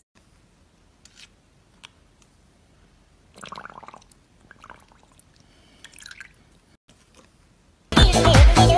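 Dog lapping water from a plastic tub: a few short, soft, wet slurps. Loud electronic dance music with a steady beat cuts in suddenly near the end.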